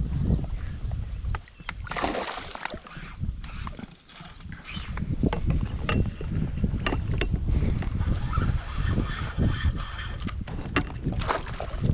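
Spinning reel being cranked in short bursts of clicking and rattling, with wind rumbling on the microphone.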